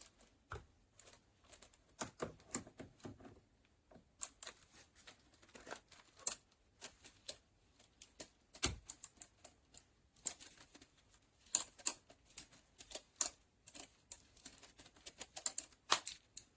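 Irregular series of sharp clicks and crinkles from a box and its packing paper being handled and opened, loudest near the end.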